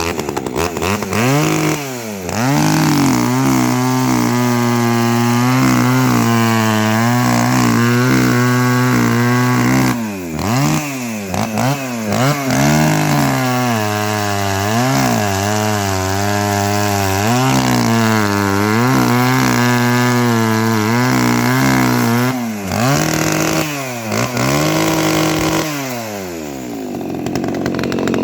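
Echo 3300T chainsaw's two-stroke engine being revved: it climbs to high revs and holds there, is blipped up and down a few times, and falls back to idle near the end.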